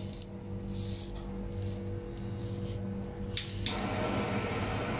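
A lump of hot binchotan charcoal pressed onto fatty tuna nigiri, searing the fish with short hisses that become a louder, steady sizzle about three and a half seconds in.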